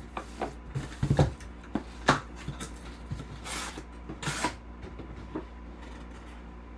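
Packaging being handled and opened to get at a sealed mini helmet: several light knocks and thumps, with two short rustling swishes about three and a half and four and a half seconds in.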